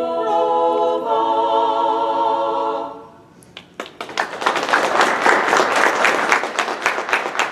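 Women's a cappella choir holding the final chord of an Italian Renaissance part-song, cut off about three seconds in. After a short pause, an audience breaks into applause.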